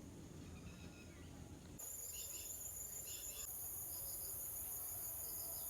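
Insects trilling steadily at a high pitch, cricket-like, setting in abruptly about two seconds in, with short chirps repeating roughly once a second. Before that there is only a low rumbling background noise with faint chirps.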